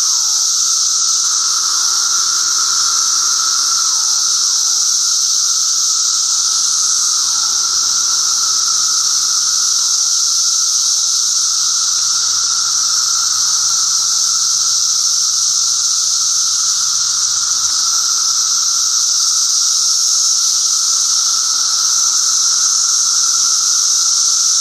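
Dense chorus of Brood XIII seventeen-year periodical cicadas: a loud, unbroken, high-pitched drone with a steady lower hum beneath it. In the first half, faint short falling calls stand out every couple of seconds.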